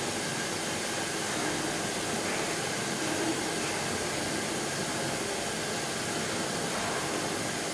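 Handheld gas burner torch running steadily with an even, continuous hiss, its flame held on a polymer conveyor roller in a fire test.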